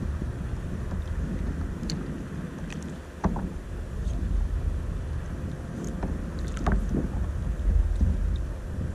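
Wind buffeting the microphone as a steady low rumble, with water lapping at a plastic kayak hull. A few light knocks and clicks stand out, the clearest about three seconds in and again near the seven-second mark.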